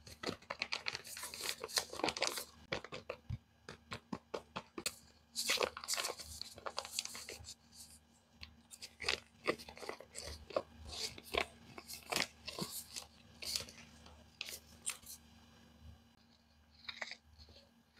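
Paper crinkling and tearing as a handmade paper blind bag is handled and opened: many short, sharp crackles in bursts with brief pauses.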